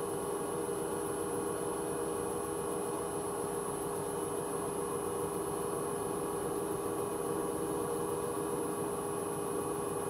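Hoover H-Wash 300 Plus washing machine spinning empty at a steady 600 rpm: a steady, slightly high-pitched whine from the motor and drum, with audible bearing noise.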